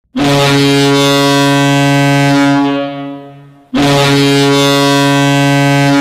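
Ice hockey arena goal horn, the Boston Bruins' horn, sounding two long blasts of a deep, steady tone, each about two and a half seconds and dying away over about a second; the second blast starts just under four seconds in. It signals a goal scored.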